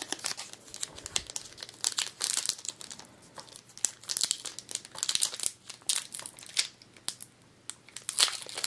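Pokémon card booster pack's foil wrapper crinkling and being torn open by hand, a continuous run of irregular crackles.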